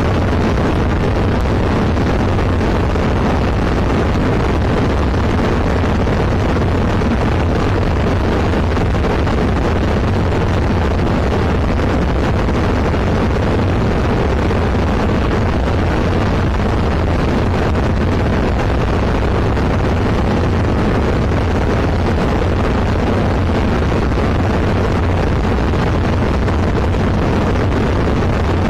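Zenith CH 701 light aircraft's engine and propeller running steadily in cruise flight, heard inside the cockpit with the rush of airflow over the airframe. Loud and unchanging throughout.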